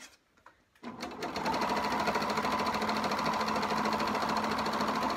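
Serger (overlock machine) starting up about a second in and running fast and steady as it stitches over the edge of the fabric.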